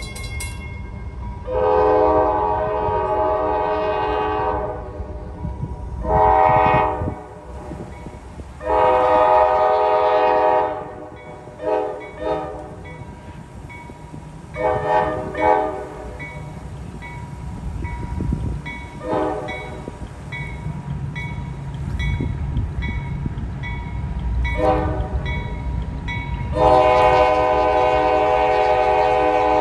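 Multi-note air horn of a GE AC44 diesel locomotive leading a freight train, blown in a string of long and short blasts, with the locomotives' diesel engines rumbling underneath. About eight blasts in all, the longest near the start, in the middle and at the end.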